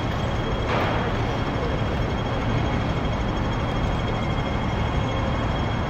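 Steady city street traffic noise, vehicles running past with a low rumble, and a brief hiss about a second in.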